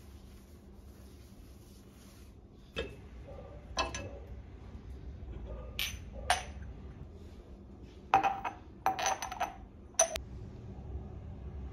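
A few separate knocks of dishes being set into a dishwasher rack, then a quick run of clinks as empty glass jars knock against each other.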